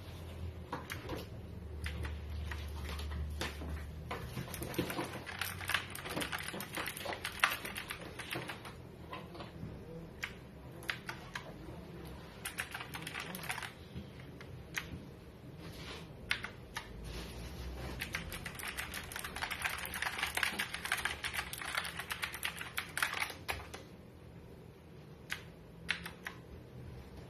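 Keys of an Auala G909 mechanical keyboard clacking under typing, in runs of fast keystrokes broken by slower single presses.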